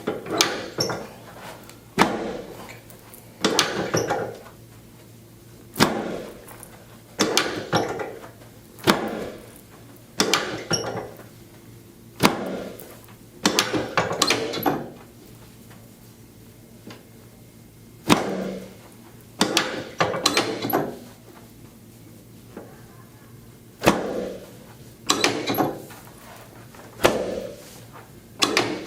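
Chiropractic drop table knocking sharply under adjusting thrusts, one knock every one to two seconds and often two in quick succession, with two short pauses. The adjustments are aimed at a leg that is measuring short on one side.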